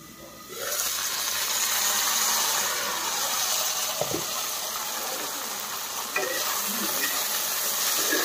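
Sliced onions, tomatoes and brinjal sizzling in hot oil in a kadai. The sizzle swells sharply about half a second in as the glass lid comes off, then holds steady while a spatula stirs and scrapes the pan now and then.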